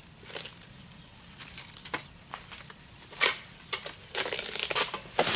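Pole-mounted harvesting sickle (egrek) working at the stalk of an oil palm fruit bunch: scattered scrapes and cracks, one sharper crack a little past halfway, and a denser run of crackling near the end as the stalk gives. A steady high insect hum runs underneath.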